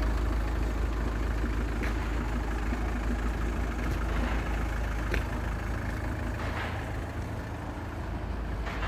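Opel Zafira B's 1.9 CDTI Z19DT diesel engine idling steadily, with a few faint clicks over it.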